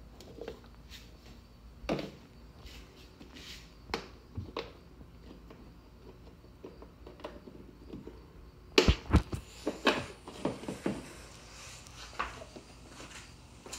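Scattered clicks and knocks of a plastic tail lamp housing being worked loose and pulled off a 1986 Pontiac Trans Am's rear panel, with a quick run of louder knocks and rattles about nine to eleven seconds in.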